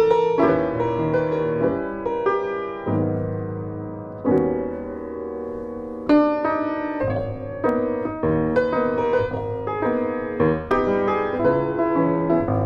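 Solo piano music, slow and gentle, notes and chords struck one after another and left to ring.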